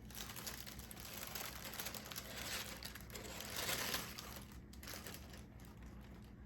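Packaging crinkling and rustling as it is handled, loudest about three and a half seconds in, then dying down.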